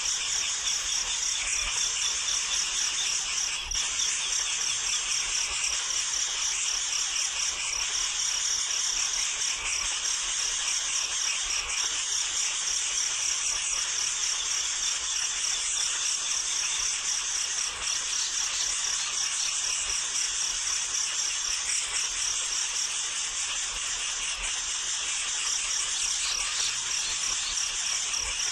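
A steady, high-pitched chorus of crickets or similar insects, a fast even trill that runs without a break.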